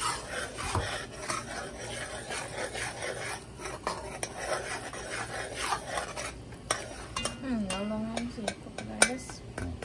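A metal spoon stirring and scraping a sauce in a pan, with repeated clicks of the spoon against the metal, over the light sizzle of oil frying.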